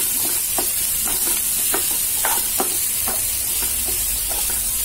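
Chopped onions sizzling as they fry in hot oil in a kadhai, stirred with a wooden spatula that scrapes and taps the pan in quick, irregular strokes about three times a second over a steady high hiss.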